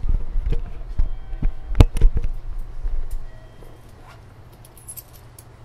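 A run of irregular low thumps and knocks for about three seconds, then a steady low hum from a stationary JR Central 373 series electric car's onboard equipment, with a few faint clicks.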